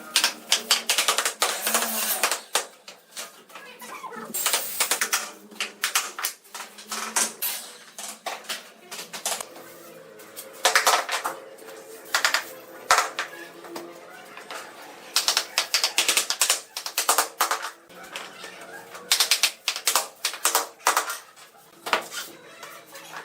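Bursts of rapid clicking and clattering: hard pieces knocking together in quick runs that start and stop every second or two.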